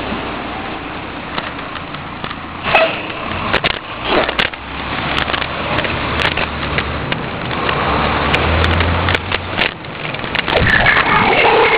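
Heil 5000 rear-loader garbage truck running close by: a steady engine rumble with scattered clanks and knocks, the engine rising for about a second around nine seconds in. Near the end a wavering high squeal starts as the packer mechanism begins to cycle.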